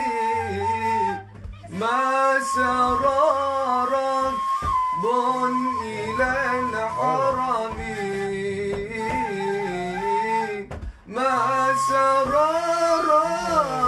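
Male voice singing an Arabic devotional song (nasheed) in a long, ornamented melody over a low held drone, with two short pauses: one about a second in and one near eleven seconds.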